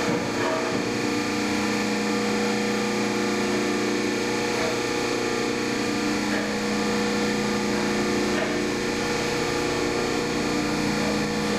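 Hydraulic tube bender's electric motor and pump running with a steady hum.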